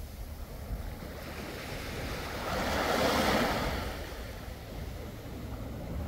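Sea waves on the shore: one wave swells up, breaks and washes in with a rushing hiss about halfway through, then ebbs. Low wind rumble on the microphone runs underneath.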